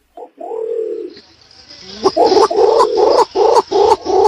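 Green imperial pigeon cooing: one deep, drawn-out coo, then about a second later a quick run of pulsed coos, roughly three a second.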